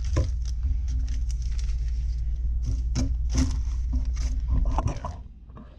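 Packaging being handled: plastic bags, paper and a box rustling and clicking as unboxed items are moved about on a table, over a steady low rumble that drops away about five seconds in.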